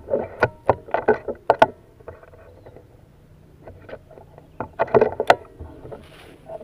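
Clicks and knocks from handling a PCP air rifle, likely working its bolt and loading it, in two quick clusters: a run of sharp clicks in the first second and a half, then another burst about five seconds in.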